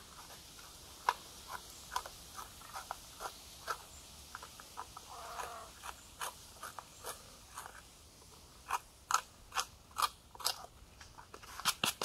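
A Victorinox Farmer X Alox pocket knife's reamer, a steel awl, being twisted and worked into bone. It gives short, irregular clicks and scrapes of steel grinding bone, sparse at first and coming faster and louder in the last few seconds.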